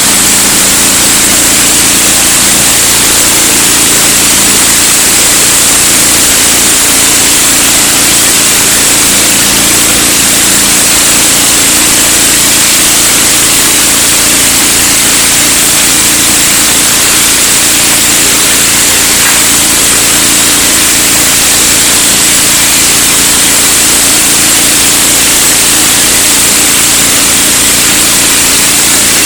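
Engine-driven pressure washer running, its high-pressure water spray a loud, steady hiss over the even hum of the engine.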